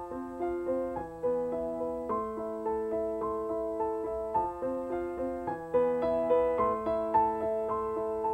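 Piano music: a calm melody of evenly paced notes, each struck and fading, about two a second.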